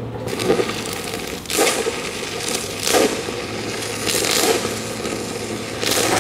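Stick-welding arc from a giant 3/4-inch Cor-Met F25 electrode running at about 1000 amps DC: a loud, steady crackle and sizzle. It catches just after the start and swells louder several times.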